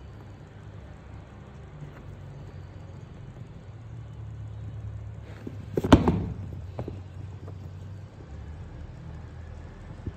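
Sneaker handling noise over a steady low rumble: a sharp knock with a few smaller clicks about six seconds in as a shoe is moved, and a short click near the end.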